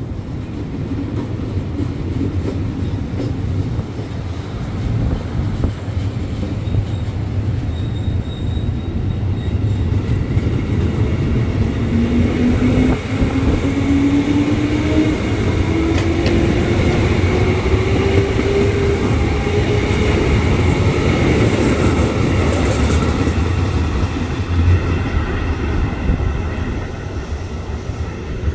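Electric commuter trains running through the station, a steady rumble of wheels and running gear. About twelve seconds in, a train's traction motor whine starts and climbs steadily in pitch for some eight seconds.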